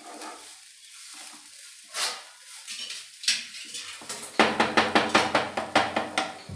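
Spoon stirring and scraping grated amla and sugar in ghee in a pan: a few separate scrapes, then about two seconds of quick strokes, some five or six a second, near the end. A low hum starts with the quick stirring.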